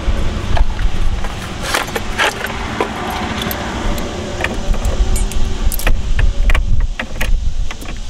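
A key ring jangling, with sharp metallic clicks, as an ignition lock cylinder with its keys is handled and pushed into a steering column. A steady low rumble runs underneath.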